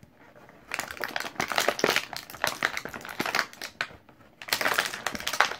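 Thin clear plastic blister packaging crinkling and crackling with many sharp clicks as fingers handle and press it, in two spells with a short pause between them, the first starting just under a second in.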